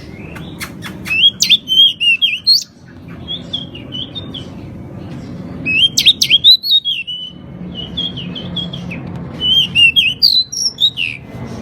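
Pied bushchat singing in several bursts of quick, high twittering phrases with a few sharp clicks, separated by short pauses, over a faint low steady background noise.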